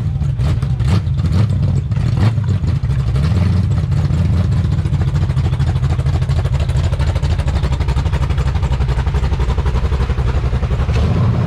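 A V8 drag-car engine idling loudly with a fast, choppy, uneven beat, with a few sharp cracks in the first few seconds.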